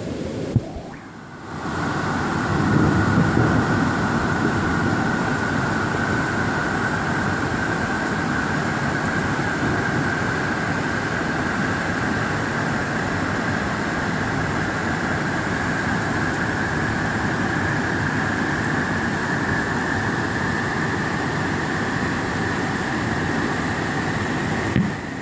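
Steady running noise of a moving vehicle, with a thin whine that slowly rises in pitch as it goes. A sharp click about half a second in.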